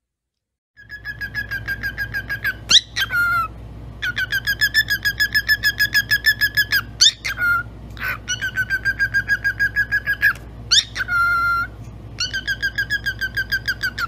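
Cockatiel chirping in rapid runs of short, evenly repeated whistled notes, about six a second, broken now and then by a quick upward squeak. It starts about a second in.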